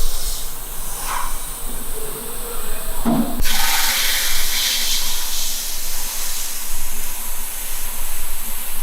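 A steady, loud spraying hiss that switches on abruptly about three and a half seconds in, after a stretch of mixed, clattery workshop noise.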